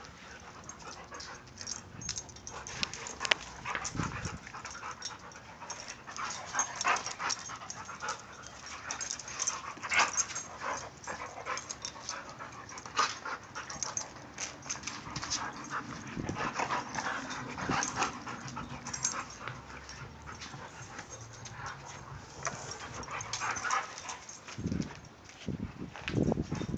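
Two dogs play-fighting, a Siberian Husky and a Husky mix: many short dog vocal sounds mixed with quick scuffling clicks as they wrestle and mouth at each other.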